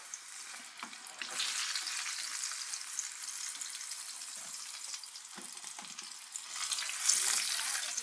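Hot oil sizzling in a small saucepan as breaded chicken pieces, fried golden brown and done, are stirred and lifted out with a slotted spoon. The sizzle swells about a second in and is loudest near the end.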